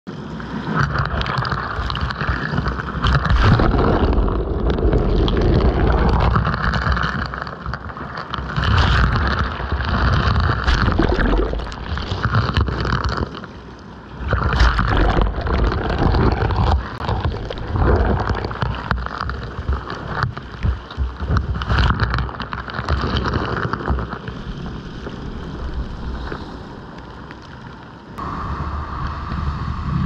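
Rough surf on a black-pebble beach, heard right at the waterline as waves wash over and around the camera: rushing, churning water rising and falling in surges every few seconds, with a heavy low rumble. The surf eases briefly about halfway through and again shortly before the end.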